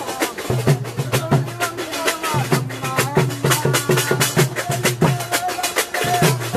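Live procession drumming in fast, dense strokes, with a wavering melody line and a low steady drone that drops out briefly a couple of times.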